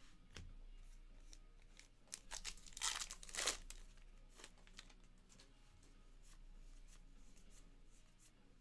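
A 2023 Topps Heritage baseball card pack being torn open by hand, its wrapper tearing and crinkling in a loud burst from about two to three and a half seconds in. Before and after come soft clicks of cards being handled.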